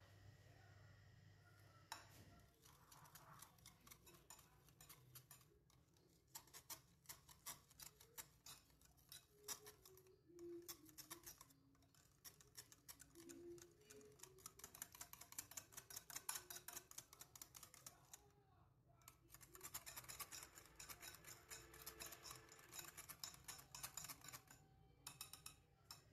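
Faint, rapid ticking of a wire whisk against a glass bowl as a thick yogurt and spice mixture is beaten, in long runs with a few short pauses.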